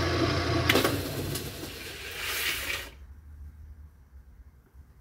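Kenmore washer's motor humming steadily, then a click about a second in as the hum cuts out, and the machine coasts down to a faint rumble. It runs without the strange noise that dirty motor-switch contacts had caused, now sanded clean.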